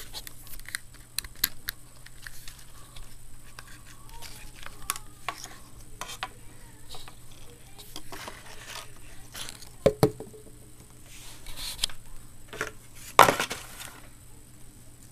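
Handling noise from a compact digital camera and its battery being turned over in the hands: scattered small plastic clicks and taps, with two louder knocks about ten and thirteen seconds in, over a faint steady low hum.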